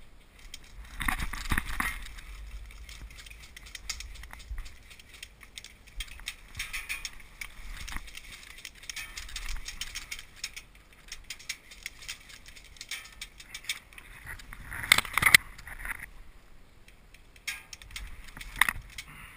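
Rustling and crackling of brush and dry leaves, with rattling of carried gear, as an airsoft player moves quickly through undergrowth; louder bursts of rustling come about a second in and again about fifteen seconds in.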